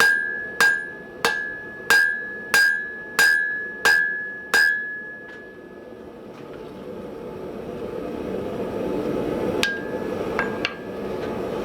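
Hand hammer striking hot steel on an anvil while drawing it out: about eight steady blows, roughly one and a half a second, each with a short metallic ring. The blows stop about halfway through, a steady rushing noise builds, and a few lighter ringing taps follow near the end.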